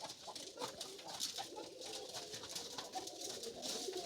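Several pigeons cooing, their low calls overlapping one another.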